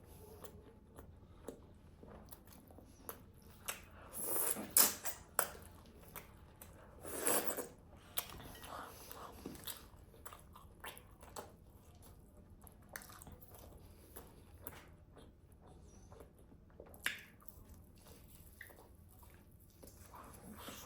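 Close-miked eating of grilled chicken: bites and chewing with small wet clicks throughout. There are louder bursts about four to five seconds in and again about seven seconds in, and a sharp click near the seventeenth second.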